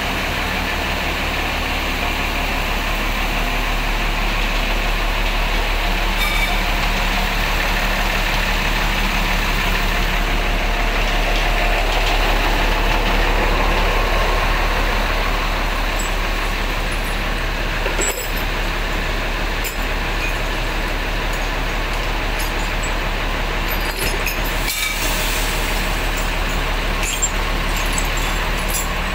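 Bus diesel engine idling steadily with a constant deep hum. A few light metallic clinks come in the second half.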